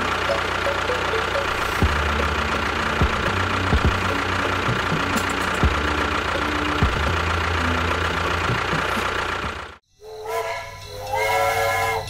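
A machine running steadily with a hiss and a high whine, with scattered sharp clicks. It cuts off abruptly near the end, and a few sustained tones follow.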